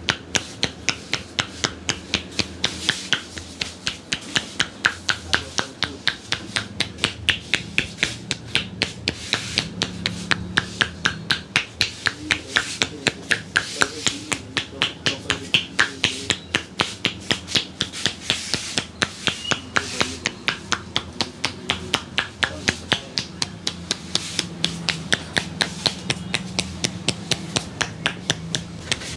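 A massaging barber's hands tapping and slapping in a steady rhythm, sharp pats at about two to three a second that never break off.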